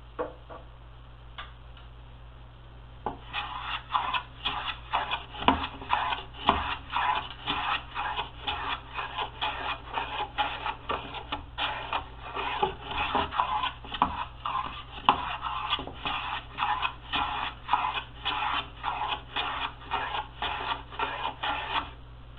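Hand plane cutting along the edge of a wooden panel to round it into a bullnose, in quick short strokes: a rhythmic swish of shavings about two strokes a second, starting about three seconds in after a couple of light knocks.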